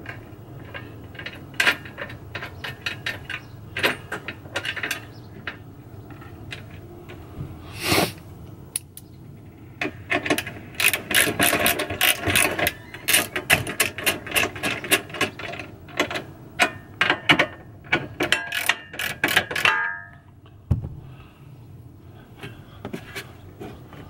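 Socket ratchet clicking in quick runs while nuts are run down on the mounting bolts of a fridge slide, mixed with scattered metal clinks of bolts and washers. The clicking is densest from about ten seconds in and stops about twenty seconds in.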